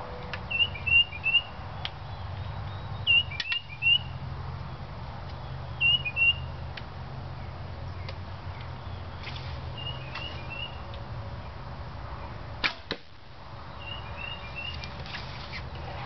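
A homemade 1-inch schedule 40 PVC recurve bow is shot about thirteen seconds in: a sharp snap of the released string, then a second crack a fraction of a second later. A songbird chirps short repeated phrases throughout.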